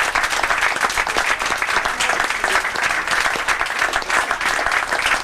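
A room of people applauding, dense clapping that holds steady throughout.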